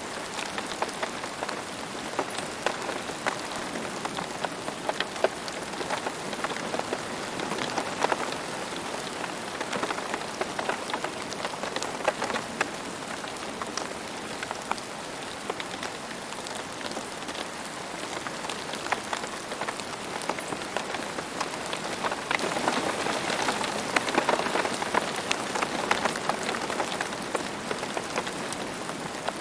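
Steady rain falling on hard surfaces, with many distinct drops ticking through a constant patter, swelling a little louder for a few seconds about three quarters of the way in.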